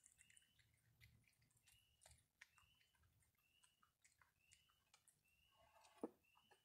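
Very faint: a Virginia opossum sniffing and nibbling at dry food on a wooden table, soft scattered clicks with one sharper knock about six seconds in. A faint short chirp repeats about every three quarters of a second behind it.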